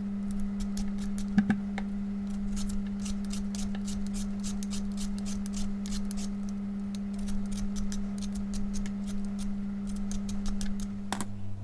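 A julienne peeler scraping thin strips off a raw potato: quick, repeated scraping strokes, about three or four a second, over a steady low hum.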